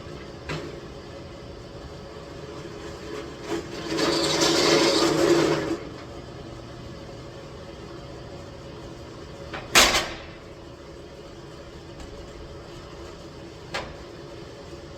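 Workshop handling and tool noises over a steady low hum: a loud hiss-like rush of about a second and a half about four seconds in, a sharp knock near ten seconds, and a few light clicks.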